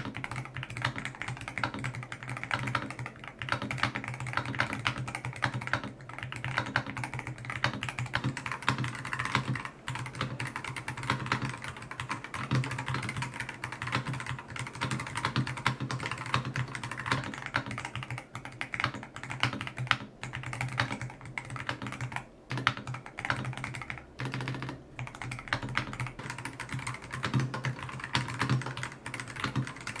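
Fast typing on an Akko 5075S mechanical keyboard: a dense, continuous stream of keystrokes, with a low steady hum underneath.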